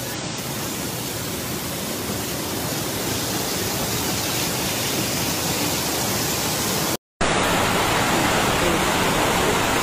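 Heavy rain pouring down, a steady dense hiss. After a sudden cut about seven seconds in, a louder, fuller rush of floodwater running as a torrent down a street.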